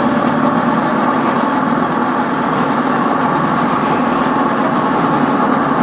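1/10-scale RC crawler with a 55-turn electric motor driving steadily over loose gravel. The motor and spur-gear train whine while the tyres crunch and scrub on the stones.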